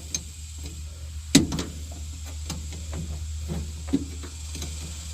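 Scattered light clicks and knocks of parts and hand tools being handled while working on machinery, the sharpest about a second and a half in and another near four seconds, over a steady low hum.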